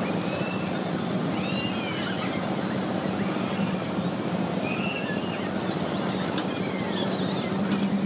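Fairground noise at a turning Ferris wheel: a steady low machine hum under a busy wash of noise, with high squealing glides now and then and two sharp clicks in the last couple of seconds.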